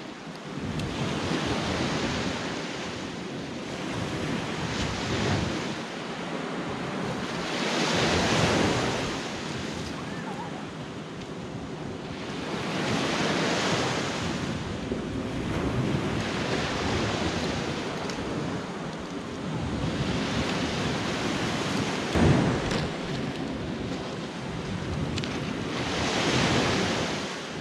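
Sea waves washing onto the shore, swelling and falling back about every five to six seconds, with wind buffeting the microphone. Late on, a single sharp knock.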